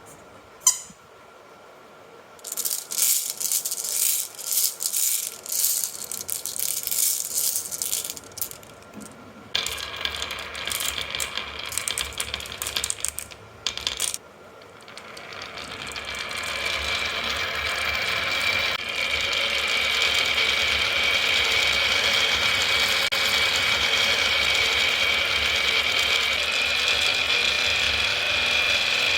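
Marbles clattering and clicking down a HABA marble run in a dense rattle. About halfway through this gives way to a steady, continuous rolling rush that builds and then holds.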